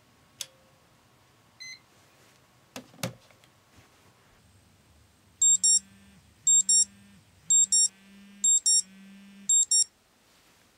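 Smartphone alarm going off: five high-pitched double beeps about a second apart, each with a low buzz beneath, stopping when the alarm is snoozed. A few soft clicks and knocks come before it.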